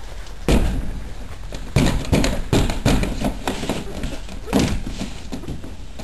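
A person thrashing inside a small plastic-panelled greenhouse: a run of thumps and knocks against the panels, about eight strong ones in four seconds, with wordless vocal cries among them, acted as choking on gas.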